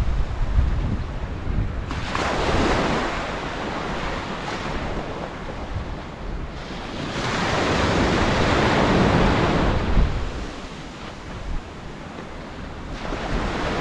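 Small waves breaking and washing up a sandy beach, the surf swelling and ebbing every few seconds and loudest about eight to ten seconds in, with wind buffeting the microphone.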